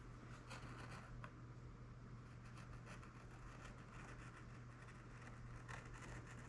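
Faint light scratching of a hobby knife scribing a line in balsa wood, with a few small ticks, over a low steady hum.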